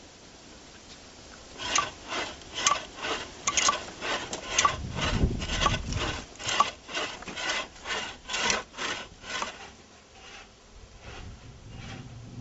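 Wooden frame saw cutting through a log by hand, with back-and-forth strokes about two a second. The strokes start a little over a second in and stop about nine and a half seconds in.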